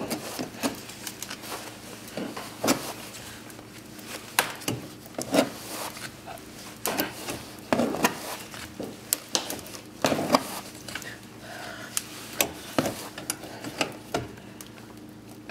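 Irregular clicks, knocks and wooden creaks from a car jack being worked with a wrench to force up an MDF wall, its screws pulling out of the MDF floor.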